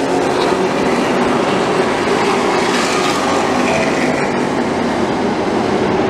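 Engines of a pack of late model stock cars running at speed around the oval: a loud, steady drone with no break.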